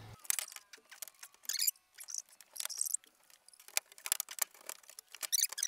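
Heavy 4-gauge service cable being bent and worked into a metal breaker panel by hand: scattered clicks, taps and scrapes of the stiff wire against the steel enclosure and breakers, with a few short rustles.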